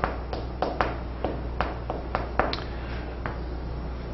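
Chalk tapping and scraping on a blackboard as characters and lines are written: a dozen or so short, irregular taps, sparser near the end.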